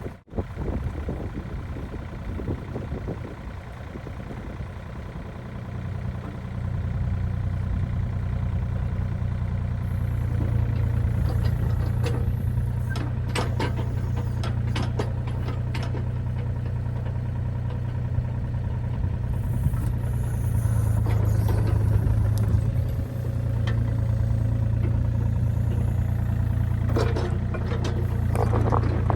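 A large engine runs steadily at a low idle, with scattered clicks and rattles over it, twice in clusters.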